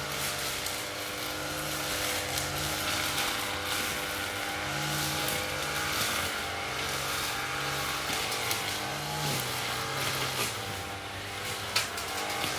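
Lawn mower engine running steadily, with one sharp click near the end.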